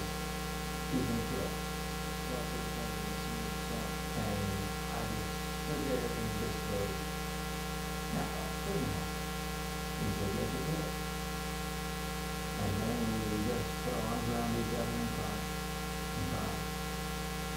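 Steady electrical mains hum with a stack of overtones, with a faint, indistinct voice coming through in short snatches now and then.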